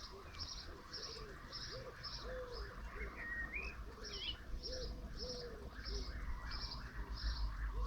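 Birdsong: a small bird repeating a short high chirp about twice a second, with a pigeon's low cooing notes mixed in and a couple of brief whistled glides from another bird.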